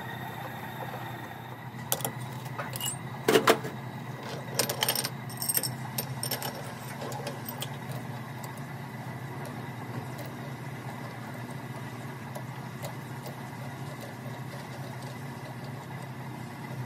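Sharp metallic clinks and knocks of the steel CV joint and lathe chuck being handled, clustered between about two and six seconds in, the loudest near three and a half seconds, over a steady low machine hum.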